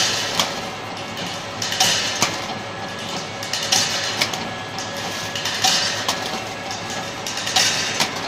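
Preformed armour rod forming machine running: a steady machine noise with a double knock that repeats about every two seconds.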